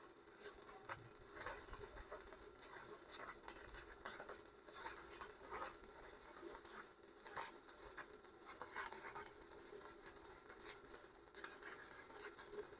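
Faint, irregular crackling of a stick-welding arc as a 4 mm electrode welds 10 mm thick steel.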